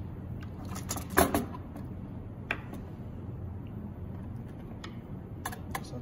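Small clicks and taps of hands working wire and a screwdriver in a duct smoke detector's housing and terminal block: a quick cluster about a second in, the loudest, one more a second later, and a couple near the end, over a low steady hum.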